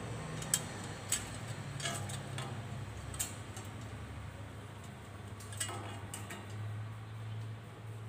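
Refrigerator compressor running with a steady low hum, pumping against a condenser line held shut by hand to build pressure for a soap-bubble leak check of the welded joints. A few sharp light clicks from handling are heard now and then.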